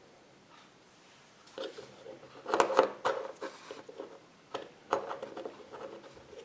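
Small hard-plastic clicks and rattles as a Kinder Surprise toy figure and its plastic capsule are handled and set down on a tabletop. The clicks start about a second and a half in, come thickest a second later, and pick up again near the end.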